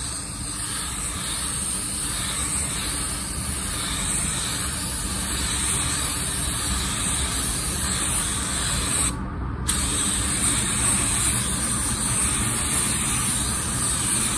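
Iwata spray gun spraying waterborne paint with its air pressure set just below 15 PSI: a steady, even hiss of air and atomised paint. The hiss cuts out for about half a second some nine seconds in, then resumes.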